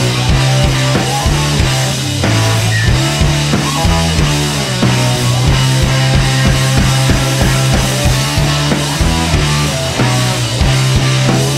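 Background rock music with drums, guitar and a steady bass line.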